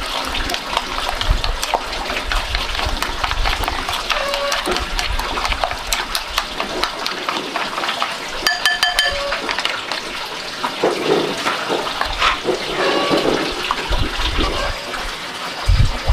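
Wooden chopsticks beating raw eggs and chopped pork in a ceramic bowl: fast, irregular clicks of the sticks against the bowl with the wet slop of the mixture.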